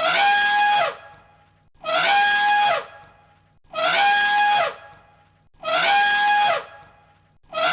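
An animal's loud, trumpet-like call with a steady pitch, repeated about every two seconds, identical each time: four full calls, and a fifth beginning near the end.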